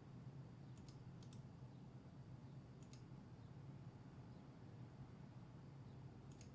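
Near silence over a low steady hum, with a few sharp computer mouse clicks, including a quick double click about a second in.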